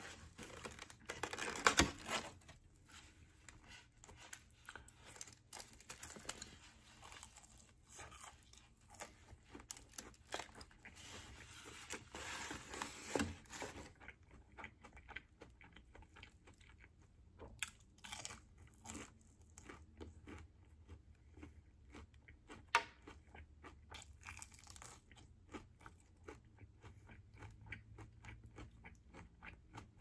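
Close-up eating sounds. A foam takeout box is handled with a sharp click about two seconds in, then crunchy fried food is bitten and chewed, with many short, irregular crunches.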